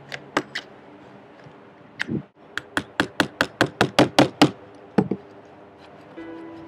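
Hammer tapping on a wooden deck: a few scattered taps, then a quick run of about ten strikes at roughly five a second, then two more taps.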